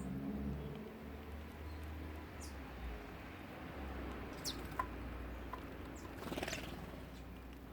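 Wild birds giving a few short, high chirps that fall in pitch, over a steady low rumble, with a short rustling burst near the end.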